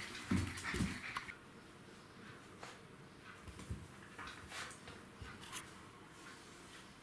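Golden retriever puppies: whining and two dull thumps in the first second or so, then quieter scattered light clicks and scrapes as they move about on the hard floor.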